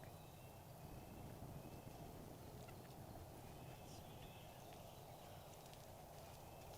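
Near-silent woods with faint, distant wild turkey calls and a few small clicks.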